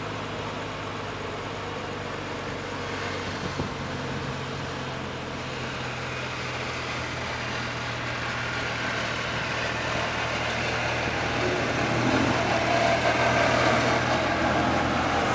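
Jet engines of a landing Boeing 767-300 freighter: a distant rumble that grows louder over the last few seconds as the aircraft comes nearer, over a steady low hum.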